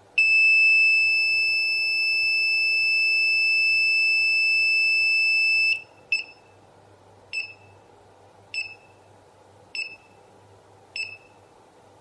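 Buzzer in a homemade 555-timer EKG monitor sound circuit. It holds one high-pitched tone for about five and a half seconds, like a heart monitor's flatline, then gives short beeps about once every 1.2 seconds, like a monitored heartbeat.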